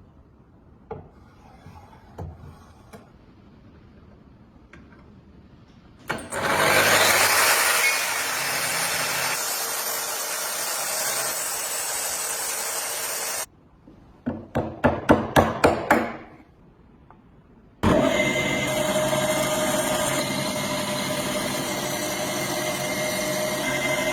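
Workshop tool sounds in separate cuts: a few light clicks, then several seconds of loud abrasive rubbing that stops suddenly, a run of about eight quick rasping strokes, and from about three-quarters of the way in a steady loud tool run with a hum through it.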